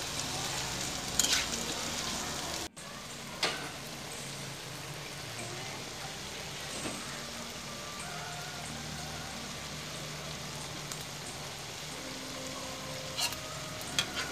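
Shrimp sizzling and bubbling in their juices in a frying pan as the chili-salt sauce cooks down, with a spatula knocking against the pan a few times.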